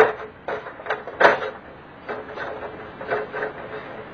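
A long LED light bar from an edge-lit LED TV is handled against the TV panel's sheet-metal back: scattered knocks and rubbing clatter, the loudest a little over a second in.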